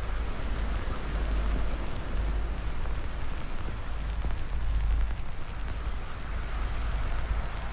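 Fire burning steadily: a continuous rushing noise with a deep low rumble and a faint crackle.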